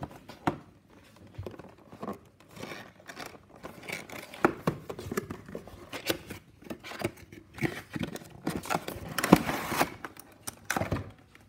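A cardboard model box being opened by hand: scraping and tapping as the sleeve slides off, then crinkling and clicking of a clear plastic packaging tray, with a longer burst of rustling about nine seconds in.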